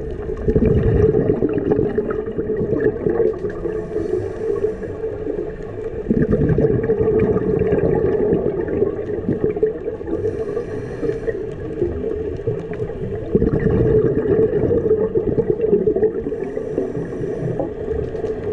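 Scuba diver breathing through a regulator underwater: a bubbling rush of exhaled air about every six to seven seconds, with a short hiss of inhalation in between, over a steady underwater hum.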